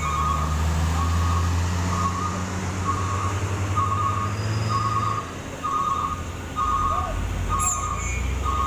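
A truck's reversing alarm beeping about once a second over a diesel truck engine running; the engine drops back about five seconds in and picks up again shortly before the end.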